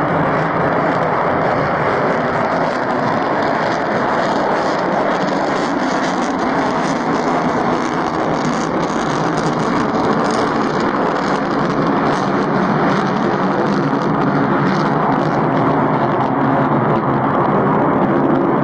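Steady, unbroken engine noise of a running vehicle, loud and even, with a faint hum under it.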